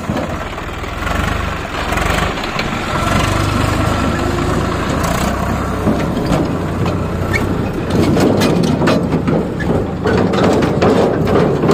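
Swaraj 744 FE tractor's three-cylinder diesel engine running steadily, with a growing clatter of short knocks and clicks from about halfway through.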